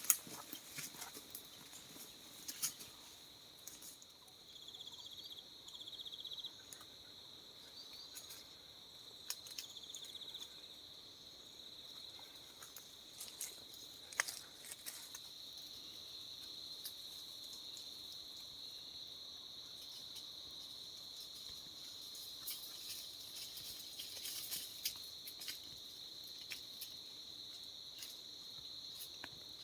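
Insects trilling in a steady high-pitched drone, with a few short pulsed chirps about five and ten seconds in, and scattered faint clicks and crackles.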